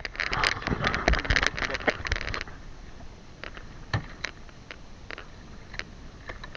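Splashing with rapid knocking and clatter for about two and a half seconds, then it drops to quieter sea noise with a few scattered knocks: a freshly caught tuna being handled aboard a small fishing boat.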